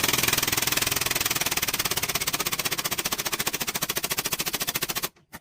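Pneumatic air tool hammering rapidly and evenly, about twenty blows a second, for about five seconds, then stopping abruptly.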